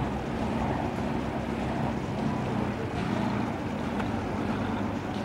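Boat engine running steadily while the boat is under way: a constant low drone with an even hiss of wind and water over it.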